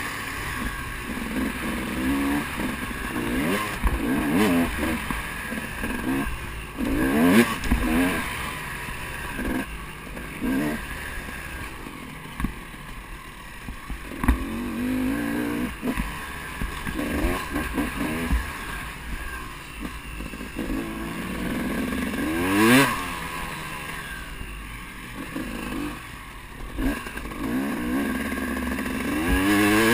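KTM enduro motorcycle engine heard from on board, its pitch rising and falling over and over as the rider revs and shifts along a dirt track, with one sharp, loud rev about three-quarters of the way through.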